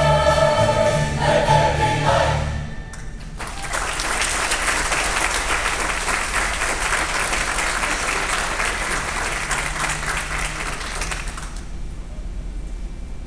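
A church choir holds its final chord, which ends about three seconds in. The congregation then applauds for about eight seconds, and the clapping dies away near the end.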